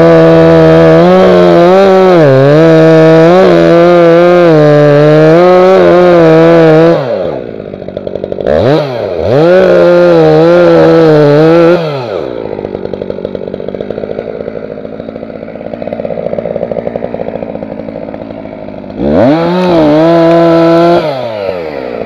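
Holzfforma G366 two-stroke chainsaw cutting into a tree trunk at full throttle, its pitch dipping under the load, with top revs raised to match a Stihl MS361. About seven seconds in it drops to idle, revs up twice more, idles for several seconds, then gives one more full-throttle burst near the end before falling back to idle.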